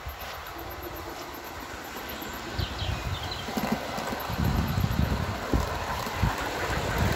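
An O gauge model Class 37 diesel locomotive and its loaded MGR coal wagons running on garden track, a low rumble with irregular knocks that grows louder about halfway through as the train comes close.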